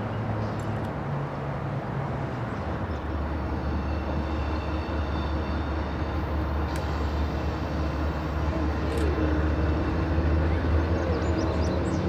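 Diesel locomotive engines running with a steady low drone. About three seconds in, the lone locomotive running light gives way to a pair of diesel road locomotives leading an intermodal train, which grow louder as they approach.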